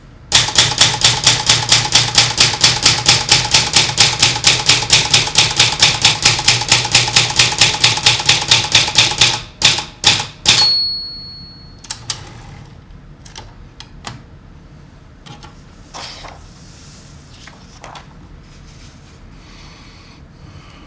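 Typewriter being typed in a fast, even run of about five keystrokes a second for some nine seconds, then a few slower strokes. About ten and a half seconds in, a single bell rings for just over a second, the end-of-line warning bell, followed by faint scattered clicks.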